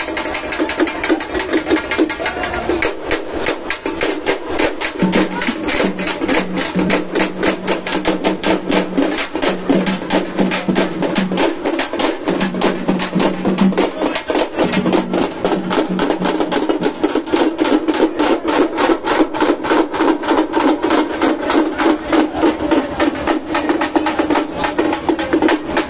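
Drums playing a fast, even beat of sharp, closely spaced strikes. A steady low tone sounds on and off under the drumming through the middle of the stretch.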